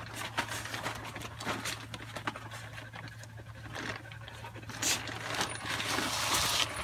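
A woven sack being lifted and handled: rustling with many small clicks and scrapes, and a denser rush of rustling near the end.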